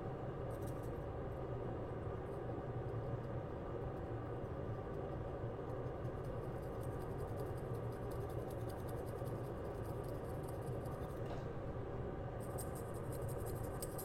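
Faint scratching of a scalpel blade scraping away the thin CPU layer from an iPhone X A11 RAM chip, over a steady low hum.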